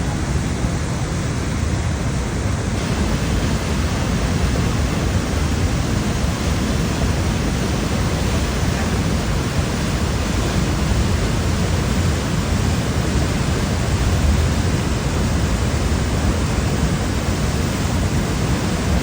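Floodwater rushing across a road: a loud, steady rush of water with no letup.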